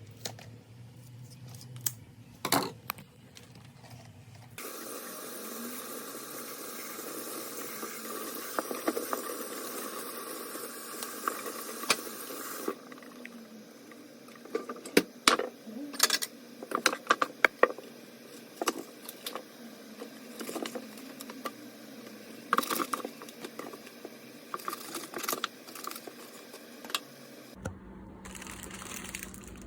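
Water running from a tap for several seconds, then a string of sharp knocks and clicks of things being handled.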